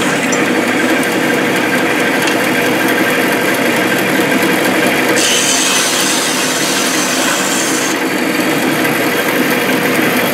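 Vertical band saw cutting through a finned aluminium radiator: a steady rasping cut over the machine's constant hum, turning sharper and hissier for about three seconds midway.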